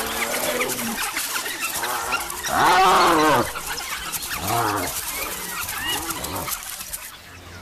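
A series of animal cries, each rising then falling in pitch, with the loudest and longest one about three seconds in.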